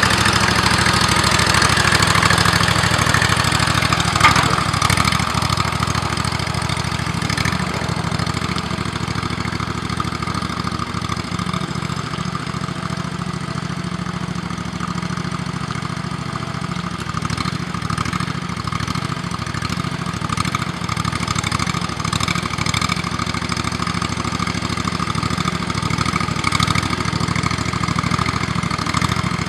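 The 25-horsepower Briggs & Stratton engine of a single-axle hydraulic-drive tractor running steadily under way, with one sharp clank about four seconds in.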